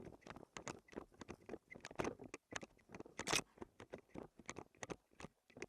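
Footsteps running through dry leaves and brush: an irregular run of crunching steps and snaps, several a second, with a louder one a little past the middle.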